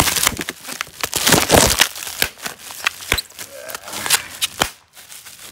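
Clear plastic wrap crinkling and rustling as it is pulled off a cardboard shoebox inside a shipping carton, with sharp crackles and clicks. It is loudest in the first two seconds, then thins to scattered clicks.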